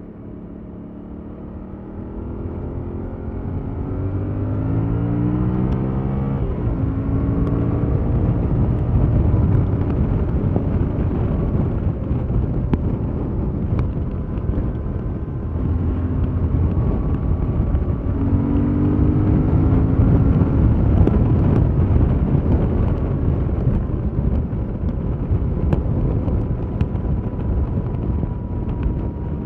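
Yamaha MT-07's parallel-twin engine with its stock exhaust, under way: the engine note climbs under acceleration, drops at a gear change about six seconds in and climbs again later. Wind and road noise run steadily underneath.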